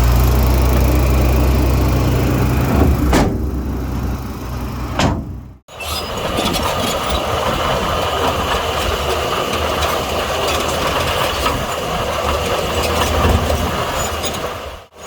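Heavy diesel earthmoving machinery running. At first there is a deep engine hum with two sharp knocks. After an abrupt break about five and a half seconds in, a noisier, rattling engine sound follows.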